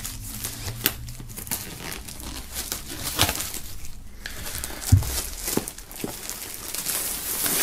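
Clear plastic shrink-wrap being pulled off a packaged bag, crinkling and crackling in many small bursts, with a single sharp knock about five seconds in.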